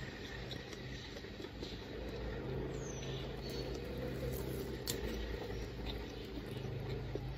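Steady low background rumble, with faint crinkles of plastic cling film being peeled back from a wrapped sandwich.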